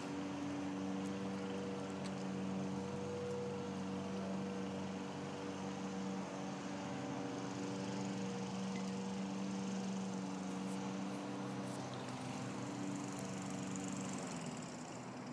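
A motor running steadily off-screen, a low drone with a few held tones that eases off near the end.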